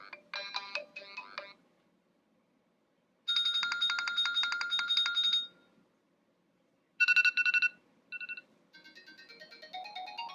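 iOS 7 iPhone ringtones previewed one after another, each cut short with gaps between them. A melodic tone ends about a second and a half in. A fast pulsing trill follows, then a few quick pulsed chirps, then a run of rising notes near the end.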